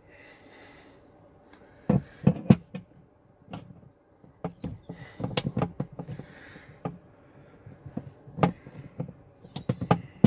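Hand rivet nut tool and metal parts being handled while an M5 rivet nut is fitted: scattered sharp clicks and knocks in small clusters.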